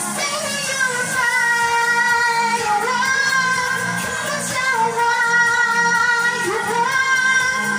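Pop song with a woman's voice singing long held notes into a microphone, over a backing track with a steady beat.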